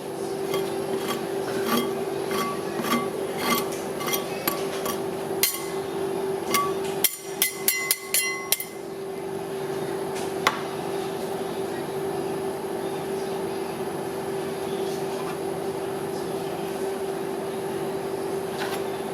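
Metal spatulas chopping and tapping on a steel ice-cream cold plate, about two sharp clicks a second, then a quick flurry of taps about seven seconds in, over a steady machine hum. After about nine seconds only the hum remains.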